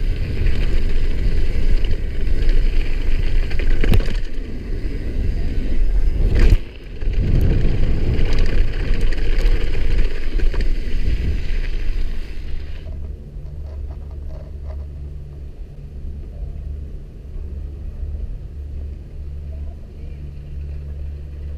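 Mountain bike tyres rolling fast over gravel, with wind rushing over the camera's microphone. There is a brief lull about six and a half seconds in. After about twelve seconds the sound drops to a quieter low rumble.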